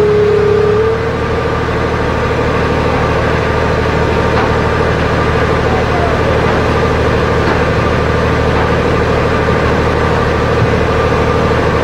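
Engine of heavy equipment running steadily close by, a low hum with a steady higher tone above it that drops slightly in pitch about a second in, then holds.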